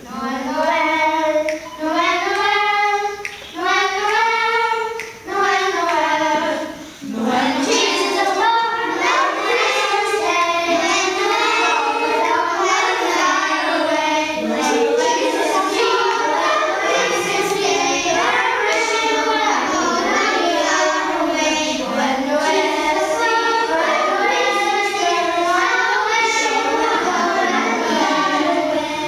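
Children's choir singing unaccompanied. For the first seven seconds or so it sings short phrases with brief pauses between them, then sings on without a break.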